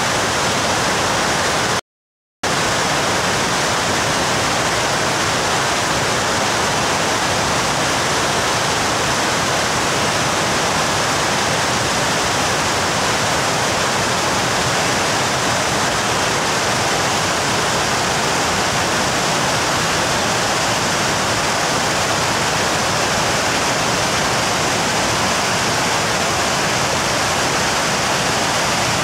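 Waterfall in heavy flow after prolonged heavy rain: a steady, loud rush of falling water. The sound cuts out completely for about half a second near two seconds in.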